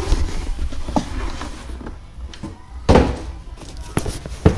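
A cardboard shipping box being handled: packing material rustles, and a few knocks and thumps come as a boxed part is pulled out. The loudest thump is about three seconds in.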